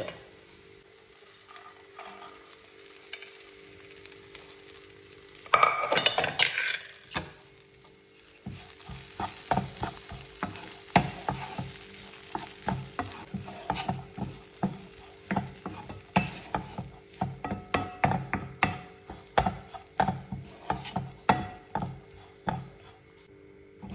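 A wooden spatula stirs and scrapes cooked foxtail millet around a nonstick frying pan in short, regular strokes, about two a second, over a faint sizzle. About six seconds in there is a louder clatter as the millet goes into the pan.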